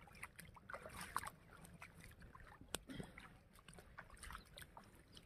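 Faint, scattered rustling and crackling of flowering coriander plants brushed while walking, with one sharp click about halfway through.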